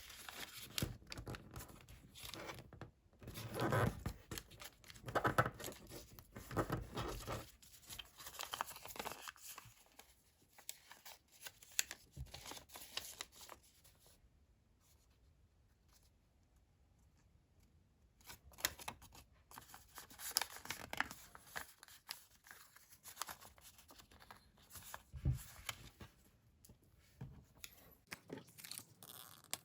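Sheet of colored origami paper being folded and creased by hand, with irregular crinkling rustles. It goes much quieter about halfway through for a few seconds, then the rustling resumes.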